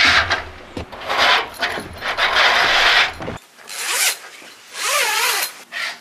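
Mosquito-net curtains on a gazebo being drawn along their rail: repeated rasping swishes of mesh fabric and its hangers sliding, with a shift in sound about three and a half seconds in and two shorter swishes after.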